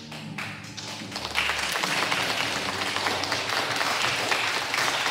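Audience clapping: a few scattered claps at first, swelling into full applause about a second and a half in.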